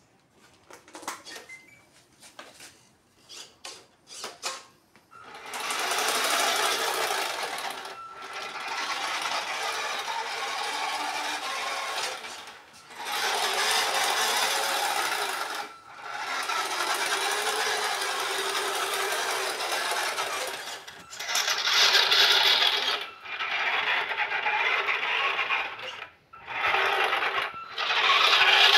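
Electric drive motor and gears of a custom radio-controlled Joustra Mitsubishi toy truck whining as it drives. There are short throttle blips in the first few seconds, then longer runs of several seconds each with brief pauses between them.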